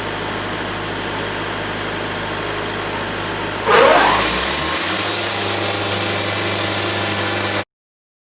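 Sawmill engine running steadily. A little under four seconds in, a rising whine and a loud high hiss join it, and the sound cuts off abruptly near the end.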